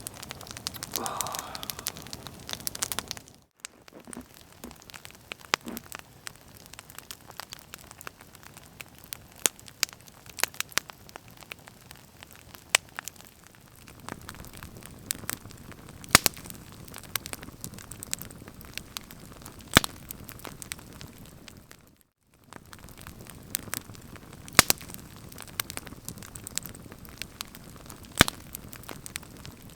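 Wood campfire crackling, with sharp pops at irregular intervals. The sound drops out briefly twice, about a third of the way in and again about three quarters of the way through.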